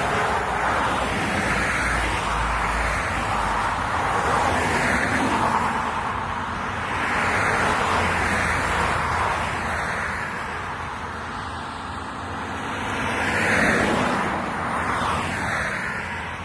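Road traffic on a highway: cars passing one after another, tyre and engine noise swelling and fading several times, loudest about thirteen seconds in.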